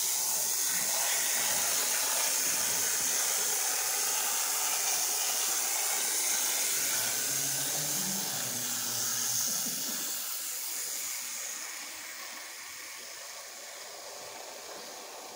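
A steady hiss with no rhythm or pitch, easing off somewhat about eleven seconds in.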